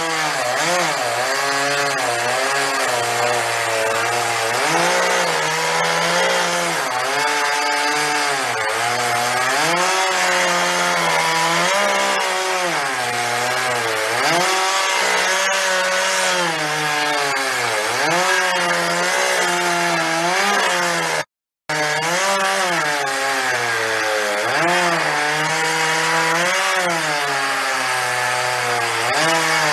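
Petrol chainsaw cutting into a wooden log, its engine pitch rising and falling over and over as the throttle is worked through the cuts. The sound drops out briefly about two-thirds of the way through.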